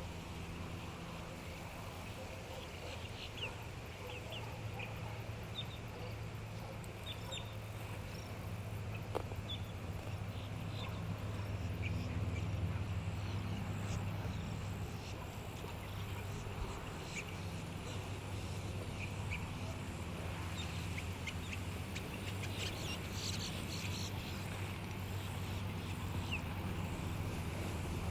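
An unidentified animal giving many short, high calls at irregular intervals, over a steady low hum.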